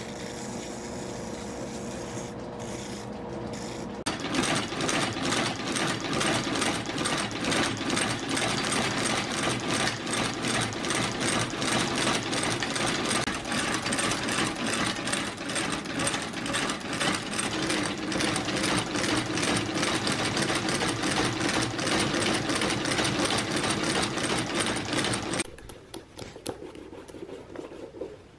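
A shoe-finishing machine's spinning wheel runs steadily against the edge of a leather sole for about four seconds. Then an outsole stitching machine takes over, stitching the new leather sole to the welt with a fast, even clatter of stitches that stops a few seconds before the end.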